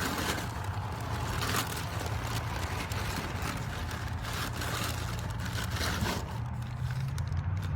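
Rustling and scraping as packaging and gun parts are handled, over a steady low rumble of passing road traffic.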